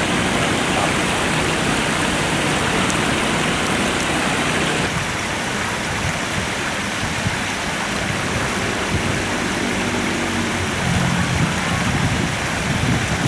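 Steady rushing of water pouring from an outlet in the concrete bank into the river, its tone shifting slightly about five seconds in.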